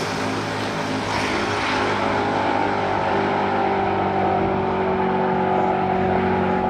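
A car engine running steadily at a nearly constant pitch.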